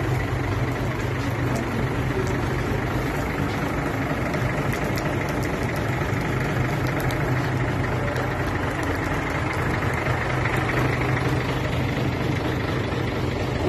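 Hino FM six-wheeler truck's diesel engine idling steadily.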